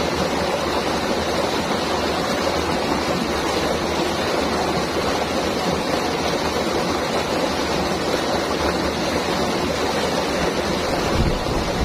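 River water flowing in a steady, loud rush with no breaks.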